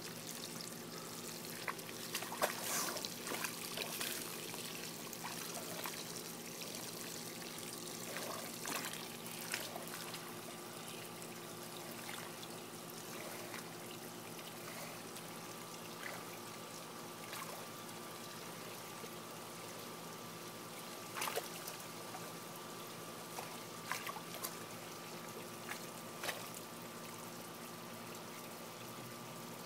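Water trickling steadily into a mud wallow, with a few brief soft splashes scattered through as a pot-bellied pig shifts in the wet mud.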